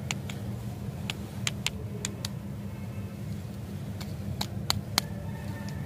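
Short sharp crackles of plastic lollipop wrappers being handled, about a dozen scattered clicks, over a steady low rumble.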